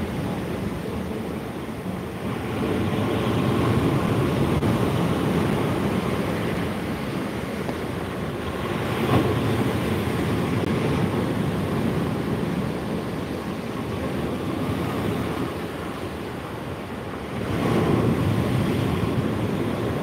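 Rough Black Sea surf breaking and washing up a beach in a steady wash of noise. It swells louder three times, about two seconds in, around the middle and near the end, as breakers come in. Wind buffets the microphone.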